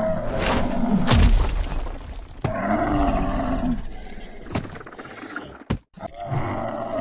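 Several drawn-out animal calls, each a second or two long, with sudden cuts between them.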